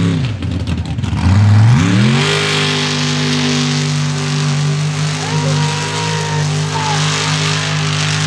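Mud racing truck's engine at hard throttle. The revs drop right at the start and stay low for about a second, then climb sharply back up and hold high and steady as the truck charges through the mud.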